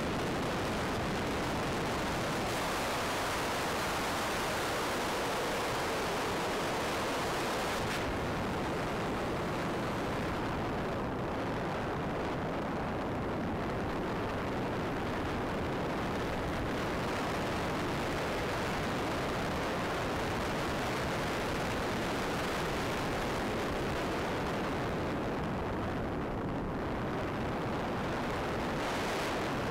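Steady rush of wind noise over the onboard camera's microphone on a Ranger 2000 RC plane in flight. The hiss is brighter for the first several seconds, then softer.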